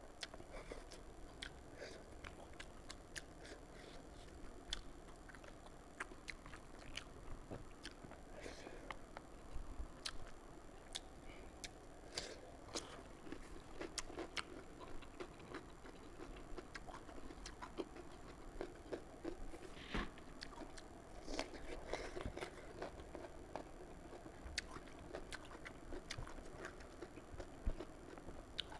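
Close-up chewing and wet mouth sounds of a person eating fish curry with rice, with many small irregular clicks and smacks throughout.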